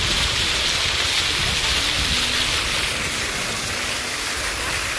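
Vertical water jets of a fountain splashing steadily into their basin: an even rushing hiss of falling water, with faint voices in the background.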